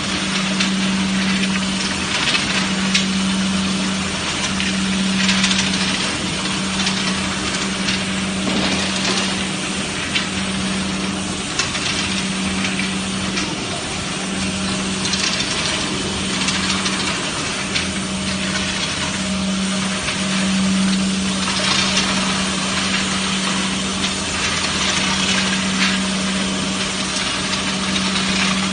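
Factory machinery running with a steady low hum over a noisy hiss, with a few sharp knocks.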